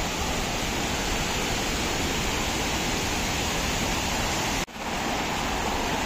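Steady, even rush of falling water from a waterfall. It drops out for an instant about three-quarters of the way through.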